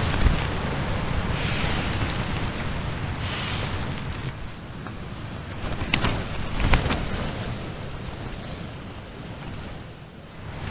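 Strong wind gusting against a tent, the fabric buffeting, with a couple of sharp flaps about six and seven seconds in.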